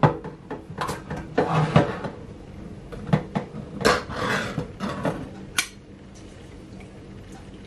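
Progresso tomato soup can being opened by its ring-pull lid: a knock as the metal can is set down, then clicks and short scraping sounds as the tab is lifted and the lid peeled back, ending in a sharp click about five and a half seconds in as the lid comes free. Only quiet background after that while the soup is poured.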